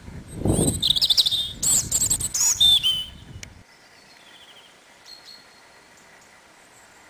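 European robin singing: loud, high, varied warbling phrases for about three seconds. The sound cuts off suddenly, leaving faint outdoor background with a couple of faint distant chirps.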